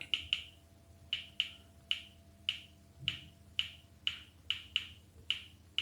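Gboard key-tap sound from a Realme 16 Pro 5G phone: a short, high click for each key typed, about fourteen of them at an uneven typing pace of two or three a second.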